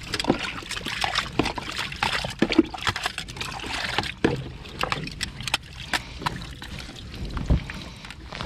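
Irregular knocks and clatter on a small moored fishing boat, with water trickling and sloshing.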